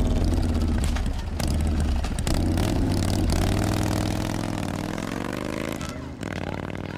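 A vehicle engine running, its pitch rising about halfway through and then fading near the end, with scattered clicks and clatter.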